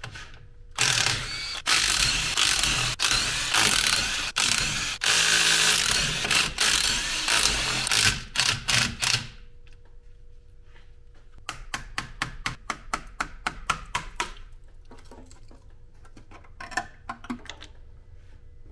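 Ratchet wrench working fasteners: about eight seconds of loud, fast ratcheting in several spurts, then a run of slower, evenly spaced clicks about five a second, and a short burst of clicks near the end.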